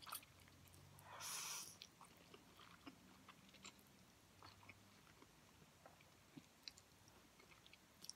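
A person eating instant ramen noodles off a fork: faint wet chewing and mouth clicks, with one louder slurp about a second in.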